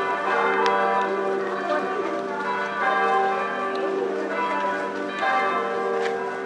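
Church bells ringing continuously, several tones overlapping, with fresh strikes every second or two. Voices of the crowd can be heard faintly underneath.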